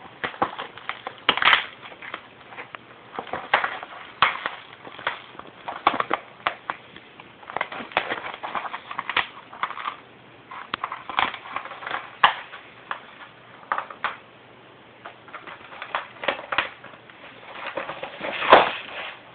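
A kitten biting and clawing at a foil-backed foam sleeping mat, making irregular crinkling, crunching rustles. The loudest crunch comes near the end.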